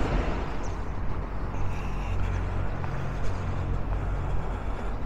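Delivery lorry's engine idling, a low steady rumble, over street noise.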